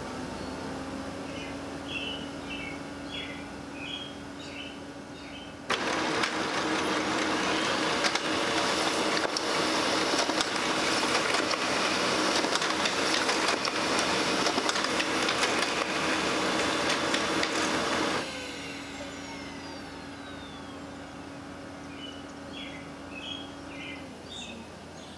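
Brother laser printer printing a page: a steady motor hum, then about six seconds in a sudden loud whirring rush of the feed and print mechanism that lasts about twelve seconds and stops abruptly, leaving the hum again. A few short high chirps come near the start and near the end.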